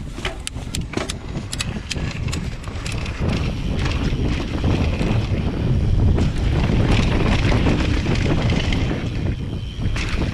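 Mountain bike ridden fast down a dirt trail: a few sharp clicks and rattles from the bike in the first seconds, then loud wind buffeting on the microphone with tyre rumble, building as speed rises and easing near the end.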